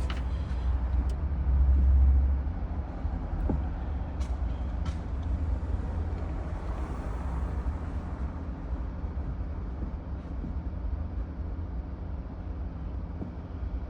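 Steady low rumble of vehicle noise, loudest about two seconds in, with a few faint clicks.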